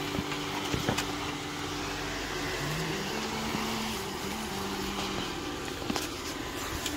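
2016 Jeep Wrangler JK Rubicon's 3.6-litre V6 engine running at low revs while crawling over creek-bed rocks, the engine note rising briefly about three seconds in. A few sharp knocks come near the start and again about six seconds in.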